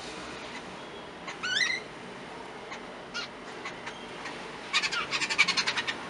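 Jungle babblers calling at a feeding dish: a single rising call about a second and a half in, then a fast, harsh chattering run of about ten notes a second near the end, the loudest sound here.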